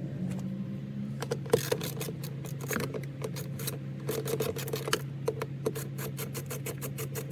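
Hand ratchet with a 7mm socket clicking in quick, even runs as door-speaker screws are backed out by hand, over a steady low hum.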